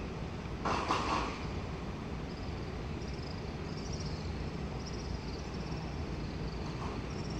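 EMU500 electric commuter train standing at the platform, with a steady low rumble and a short burst of hiss about a second in. Faint high-pitched chirping runs through the latter part.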